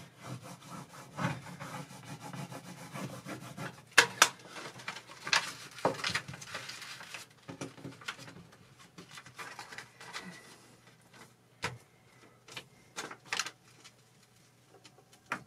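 Plastic set square scraped firmly back and forth over an adhesive transfer film laid on printed photo paper, pressing the adhesive onto the print. Rapid rubbing strokes with a few sharp clicks fill the first half; after that there are only scattered clicks and taps.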